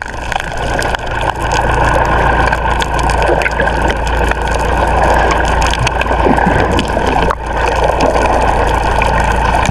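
Small fishing boat's engine running steadily, with a brief dip about seven seconds in.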